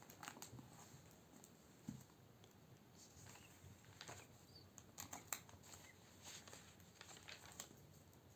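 Near silence, with faint scattered small clicks and taps, several in quick succession about five seconds in.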